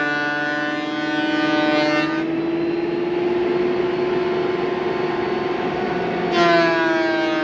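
Thickness planer cutting walnut: the motor's hum drops in pitch under load while the knives hiss through the board. About two seconds in, the board clears and the planer runs free with its pitch slowly rising. Near the end another pass begins and the pitch drops again.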